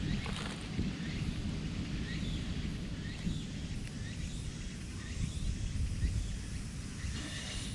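Outdoor ambience: a steady low wind rumble on the microphone, with faint short bird chirps now and then.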